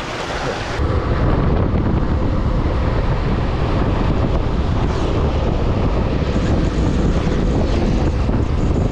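Wind buffeting the microphone over the low rumble of a moving vehicle, getting louder about a second in.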